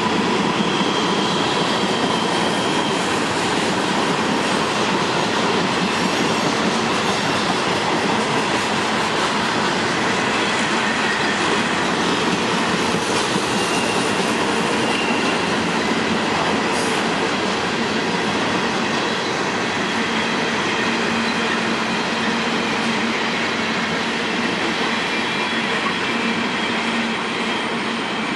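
Freight train of flatcars loaded with open-top trash containers rolling past close by: a steady, loud rolling noise of steel wheels on rail, with thin wheel squeals coming and going.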